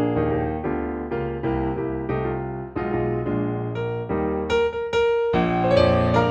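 Background piano music: a gentle melody of struck notes with chords, each note fading after it is played.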